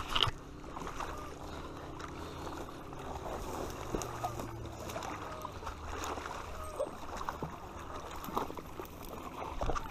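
Steady low outdoor noise with small water sounds at the lake's edge, broken by scattered faint clicks and knocks from handling a spinning rod and reel.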